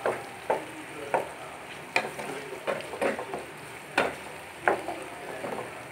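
Chopped onions and green chillies sizzling in oil in a frying pan, stirred with a wooden spatula that scrapes across the pan in short strokes about every half second to a second.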